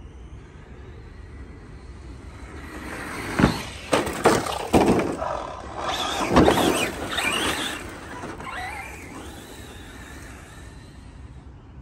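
Arrma Mojave 4S electric RC short-course truck running with a high motor whine, with a quick string of sharp knocks about three and a half to five seconds in and another about six seconds in as it hits the ramp, lands and bounces.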